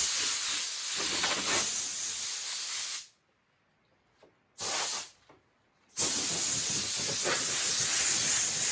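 Compressed-air blow gun hissing in three blasts as it blows grit off a car hood: a long blast that stops about 3 s in, a short burst about 4.5 s in, and another long blast from about 6 s.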